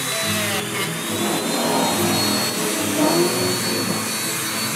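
Handheld rotary tool with a sanding drum running at high speed, a steady high whine over a grinding rasp as it sands the edge of a leather bag.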